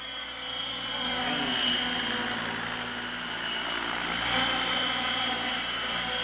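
Align T-Rex 700 radio-controlled helicopter flying low past, a steady high whine over the whir of its main rotor. It swells about a second in and is loudest as it passes close, around four seconds in.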